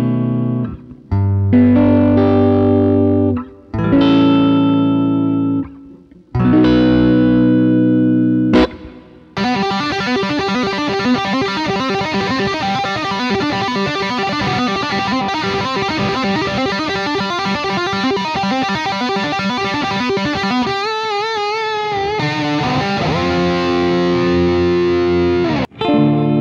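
Harley Benton SC550 Deluxe electric guitar played through an amplifier. It opens with a few held chords, each stopped with a short gap. About nine seconds in, a continuous passage of sustained notes begins, with wide vibrato near the end, and then chords return.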